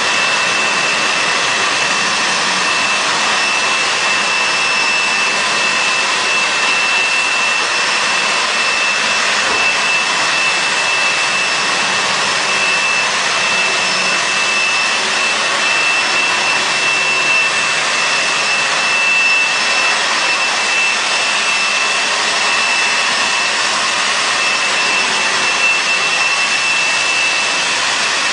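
A carpet-cleaning machine's motor running steadily: an even rushing noise with a constant high whine.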